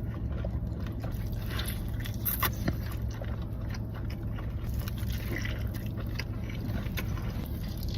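Mukbang eating sounds: a person biting and chewing food close to the microphone, with many small crunches and clicks over a steady low hum.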